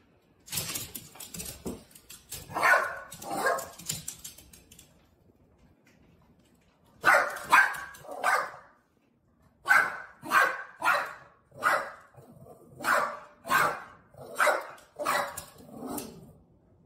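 A Boston terrier barking in a long string of short, sharp barks, with a pause of a few seconds partway through.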